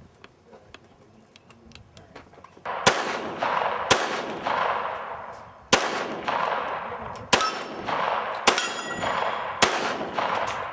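Six handgun shots fired at steel plate targets, about one to two seconds apart, the first about three seconds in; each shot echoes out, and the later hits leave steel plates ringing with a high ding.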